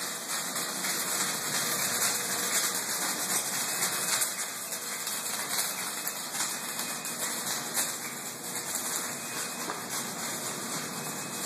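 Steady hissing background noise with no clear source.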